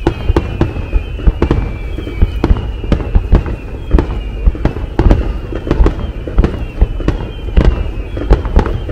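Fireworks display: aerial shells bursting in a rapid, uneven string of bangs, often several a second, over a low rumble. High tones that fall slowly in pitch recur throughout.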